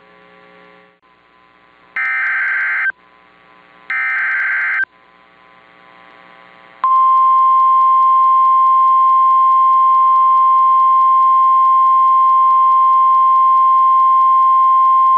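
Emergency Alert System broadcast tones. Two one-second bursts of warbling digital SAME header data come about two seconds apart, then from about seven seconds in a loud steady single attention tone sounds, heralding the next alert message. A faint electrical hum lies under the quiet gaps.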